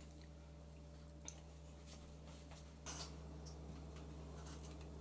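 Faint, scattered light clicks and scrapes of metal cutlery on food, a tub and a plate, with a small cluster about three seconds in: a spoon scooping ice cream from a tub, then a knife and fork cutting into a crisp Liège waffle.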